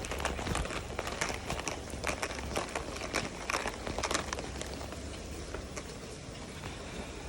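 Steady rain falling, with many irregular drops tapping sharply on a nearby surface over a low steady hum.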